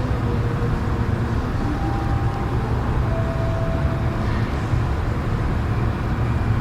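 Train station waiting-room ambience: a steady low rumble and hum, with a few faint brief tones over it.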